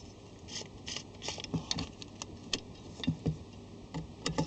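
Irregular light clicks and taps of screws being undone from the metal bracket that carries the fire's MR16 bulb holders.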